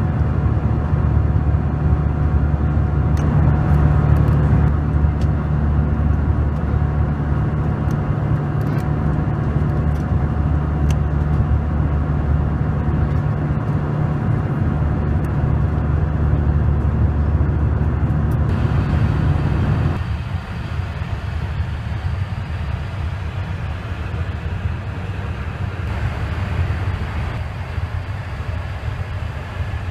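Airbus A320 cabin noise in cruise: the steady deep roar of the engines and airflow, with a few faint ticks. About two-thirds of the way through it turns a little quieter and duller.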